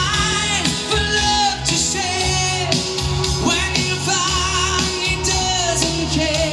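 A song with singing over drums and a steady bass line, playing through a compact homemade sound system: a line-array column with a horn tweeter and a VPK midrange driver, plus a subwoofer.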